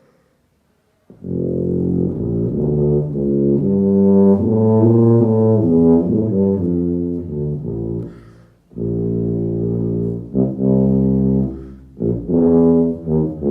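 Eastman tuba in C played solo: a melodic phrase of sustained low notes that starts about a second in, with two brief breaks in the playing.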